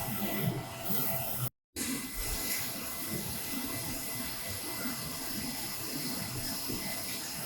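Focus Alpha Max 6250 UV flatbed printer running mid-print: a steady hiss of fans and machinery with faint steady tones. The sound cuts out completely for a moment about a second and a half in.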